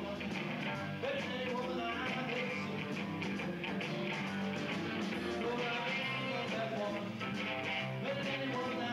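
Live rock band playing, with electric guitar, bass and drums, and the frontman at the microphone.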